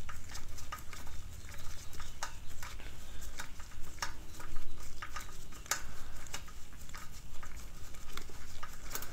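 Hand tool turning the bolts of a motorized-bike engine mount: a run of sharp, irregular metal clicks as the bolts are worked down toward snug.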